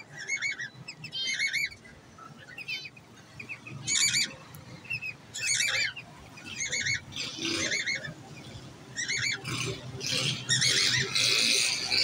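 Cockatiels giving short bursts of rapid, scratchy squawking chatter, about one burst a second, getting denser and louder over the last couple of seconds.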